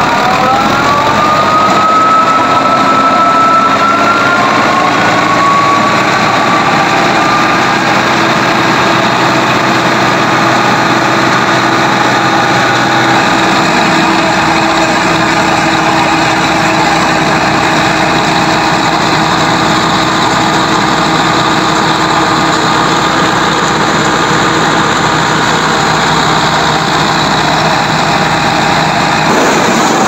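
Fiat 640 tractor's diesel engine powering a rice thresher, running loud and steady together. In the first few seconds a whine rises in pitch as the machinery speeds up, then holds steady.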